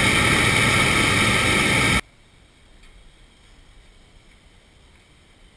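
Hot-air balloon's propane burner firing in a loud, steady blast that cuts off suddenly about two seconds in.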